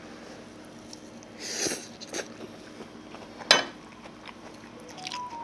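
Close-miked chewing of a bite of pan-fried zucchini and oyster pancake (jeon), with a few short mouth noises and one sharp click about three and a half seconds in.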